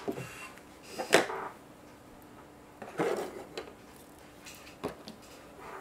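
A few short knocks and rustles of things being handled on a craft table, the loudest about a second in.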